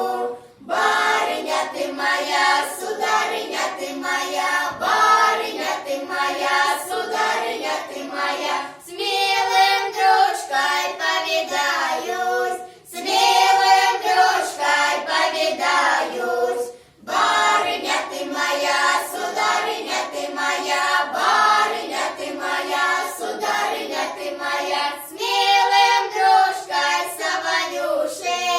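A folk ensemble's choir singing a Russian folk song together in long phrases with short breaks between them; the voices sound young.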